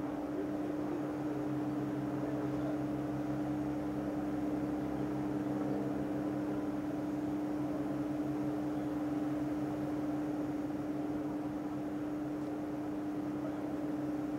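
Kazan Ansat light twin-turbine helicopter in flight, a steady turbine whine over rotor noise at an even level.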